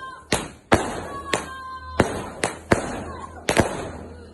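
New Year's Eve fireworks going off: about eight sharp bangs at uneven intervals.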